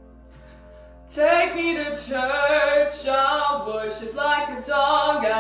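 A woman singing solo with vibrato, coming in about a second after a quiet pause and holding long notes.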